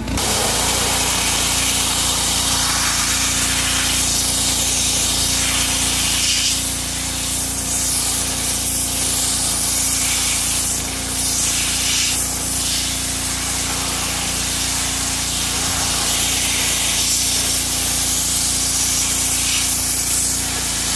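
Pressure washer jet hissing as it blasts algae and grime off a plastic pool skimmer basket, the spray changing slightly as the wand moves over the mesh. A steady hum from the machine runs underneath.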